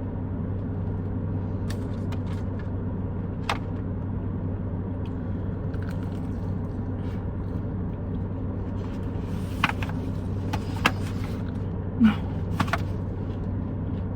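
Steady low hum of a car running while parked, heard inside the cabin. A few short clicks and smacks from eating fried chicken fingers come through, most of them in the second half.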